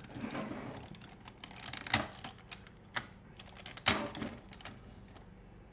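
Hard toy-robot parts being handled and snapped together as an arm piece is fitted onto the robot's right arm: two sharp clicks about two seconds apart, with smaller ticks and rustling of handling between them.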